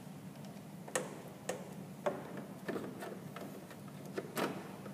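A handful of light, separate clicks and taps of pliers working a spring hose clamp and pulling the rubber fuel line off its fitting, the loudest click near the end, over a faint steady hum.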